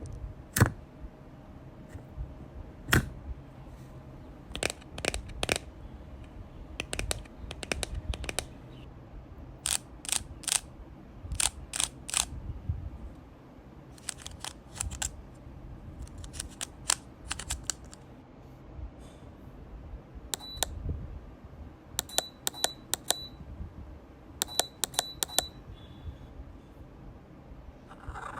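A series of sharp clicks and pops made with the face and mouth, coming in irregular clusters of two to five with short pauses between; some later clicks have a brief ringing tone.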